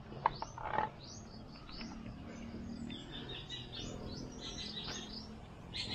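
Small birds chirping, with quick falling calls and fast runs of short high notes. A sharp click and a brief rustle come within the first second.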